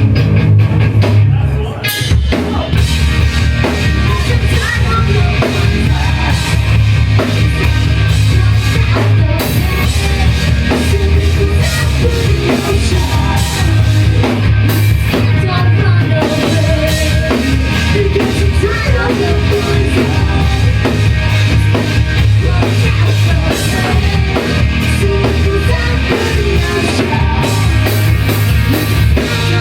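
Rock band playing live and loud, the drum kit driving a steady beat over a heavy bass line, with a brief drop in level about two seconds in.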